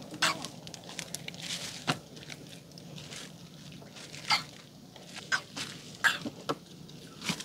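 Scattered sharp knocks and clicks at irregular intervals, about eight in all, over a faint steady low background.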